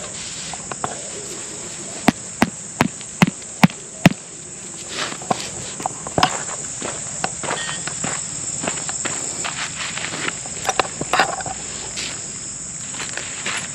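A steady high-pitched drone of crickets or other insects. Across it, a quick run of six sharp knocks comes about two seconds in, followed by scattered softer taps.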